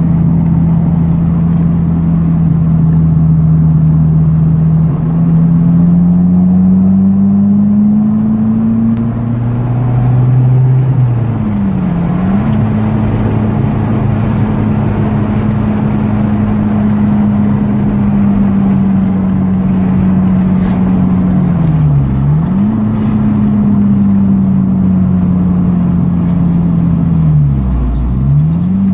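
Toyota Altezza's Speeduino-run 3S-GE four-cylinder engine pulling under load while driving, heard from inside the cabin. The pitch climbs over the first several seconds, then three times drops sharply and comes straight back up.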